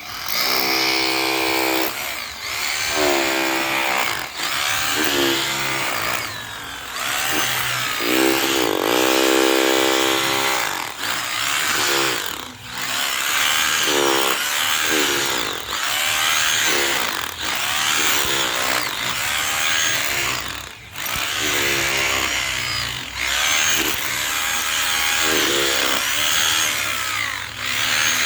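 Electric drill working into concrete, its motor pitch rising and falling in repeated bursts of one to two seconds with short let-ups between.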